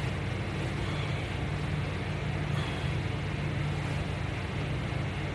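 Steady low background hum under an even hiss, unchanged throughout.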